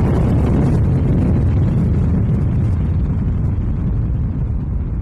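Explosion sound effect: the long low rumble after the blast, heavy in the bass and slowly dying away.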